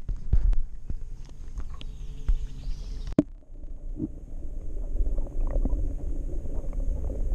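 Muffled low rumble and sloshing of lake water heard through a camera held underwater, with scattered clicks and knocks of water and handling against the housing. The sound drops out for an instant about three seconds in.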